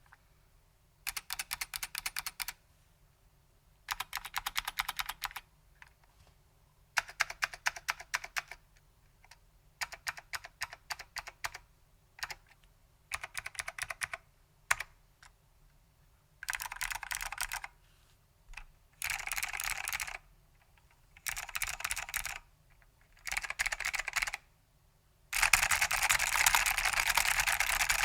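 Typing on a vintage Datacomp DFK-191 keyboard with stock SKCM White Alps Pine switches and ABS keycaps, in short bursts separated by pauses. The first bursts are separate keystrokes; the later ones are fast and dense, and the longest comes near the end.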